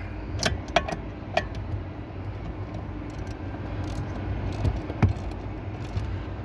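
Scattered metallic clicks and clinks of hand tools and a bolt being fitted, three in the first second and a half and a sharper one about five seconds in, over a steady low hum.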